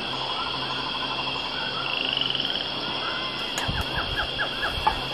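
Frogs calling in a chorus of short repeated croaks over a steady high insect drone. Near the end comes a quick run of repeated notes with a few low thumps.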